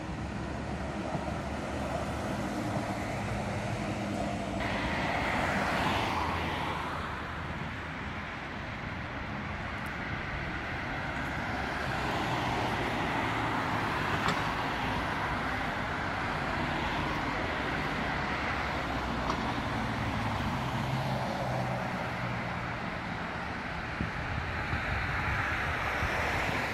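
City road traffic: cars and a tram passing on a multi-lane street, a steady rush of tyres and engines that swells as vehicles go by, about five seconds in, again from about twelve seconds, and near the end.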